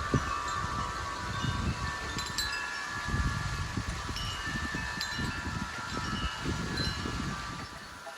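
Wind chimes ringing, with several metal tones struck at irregular moments and ringing on between strikes, over gusts of wind buffeting the microphone.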